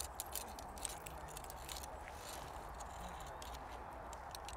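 Light, irregular metallic clicks and rattles from a Brompton's bicycle chain and spring-loaded chain tensioner arm being handled as tension is put back on the chain, over a faint steady background hiss.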